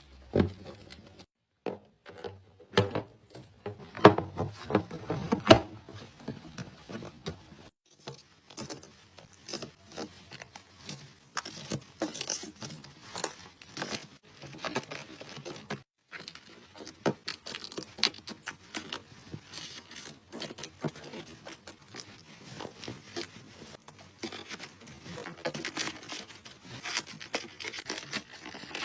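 Makeup products handled close to the microphone: a busy run of small clicks, taps and scrapes from cases, lids and applicators, broken by a few abrupt silent gaps.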